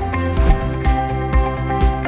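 Background music with a steady beat, about two beats a second, over sustained synth-like tones.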